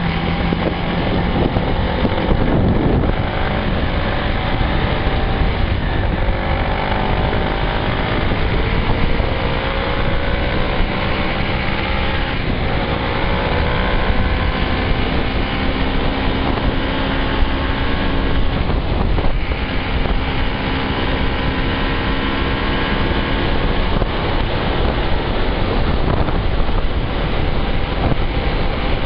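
Motorcycle engine running under way, its pitch slowly climbing through the first half as the bike gathers speed, under steady wind rush on the microphone.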